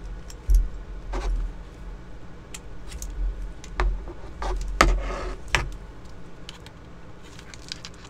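Metal Cobra and Raptor buckles on two nylon dog collars clicking and clinking as they are handled, with scattered sharp clicks, a short rustle about five seconds in, and low handling bumps.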